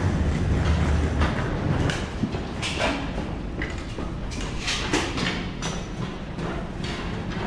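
Cabin noise inside a Bombardier CRJ-1000 regional jet: the steady rumble of its rear-mounted turbofans and airflow, strongest at the start and easing about a second in, with scattered clicks, knocks and rattles of the cabin.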